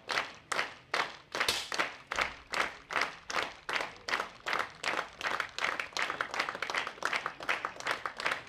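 Spectators clapping in unison in a steady rhythm of about two claps a second, quickening slightly in the second half.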